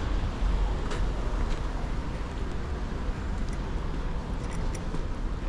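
Wind rumbling on the microphone of a handlebar-mounted action camera on a moving bicycle, over street noise, with a few light clicks about a second in and again near the end.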